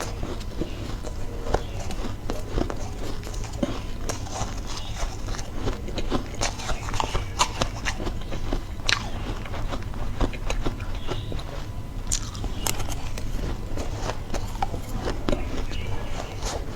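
Close-up crunching of ice being bitten and chewed: many sharp, irregular crackles, over a steady low hum.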